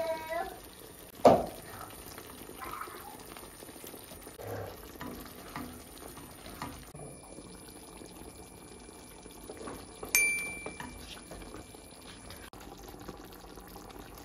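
Cream sauce with chicken and mushrooms simmering in a frying pan, with a soft steady hiss and small scattered pops. There is one sharp knock about a second in, and about ten seconds in a glass pan lid clinks and rings briefly.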